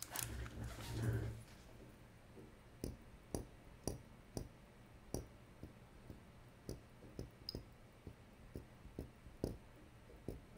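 Faint handling rustle at first, then light, sharp clicks at uneven intervals, roughly two a second, as small watch dials and tools are handled on a rubber bench mat.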